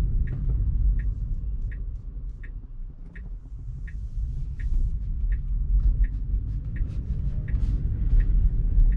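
Tesla's turn-signal indicator ticking steadily, about once every three-quarters of a second, for a right turn, over a low road rumble inside the cabin. The rumble drops as the car slows almost to a stop and rises again as it pulls away through the turn.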